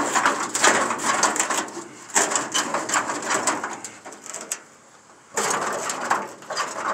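Rusted steel hood of an old International Harvester being worked against its seized hinges and latch: three stretches of metal rattling and scraping, with a pause after about four seconds. The hood is stuck with rust.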